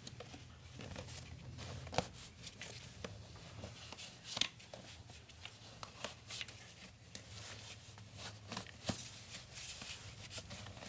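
Scattered light clicks and knocks of a part being handled and fitted by hand in a car's engine bay, two of them sharper, about 2 and 4.5 seconds in, over a low steady hum.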